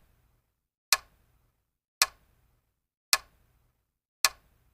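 Countdown-timer ticking sound effect: four sharp ticks about a second apart, with silence between them.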